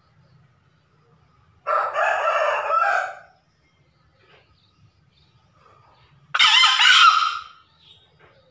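Male green junglefowl crowing twice: two short, hoarse crows, each lasting about a second and a half, about four and a half seconds apart.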